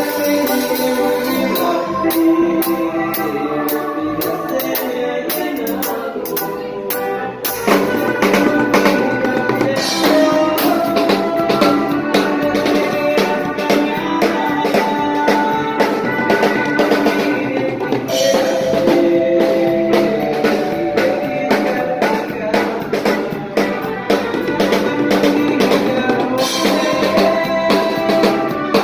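Live band with keyboard, guitar and drum kit playing a song, with a steady drum beat; about seven seconds in the sound fills out and gets fuller in the low end.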